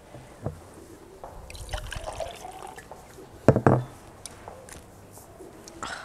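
Water poured from a glass pitcher into a cup, with a sharp knock about three and a half seconds in.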